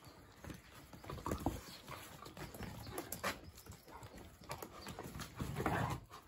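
East European Shepherd puppies play-fighting on bare dirt: irregular scuffling and patter of paws with short puppy growls, and a louder scuffle-and-growl burst near the end.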